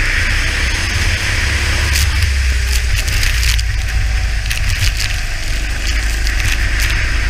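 Onboard sound of a kart at speed on a wet track: wind buffeting the camera microphone with a heavy low rumble over a steady hiss of spray. Clusters of crackling clicks come from water droplets hitting the camera, from about two seconds in.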